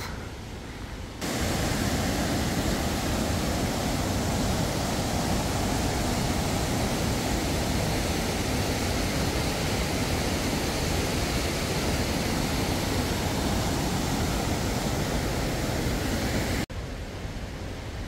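Steady rush of a mountain stream running over rocks. It starts abruptly about a second in and cuts off near the end to a quieter hush.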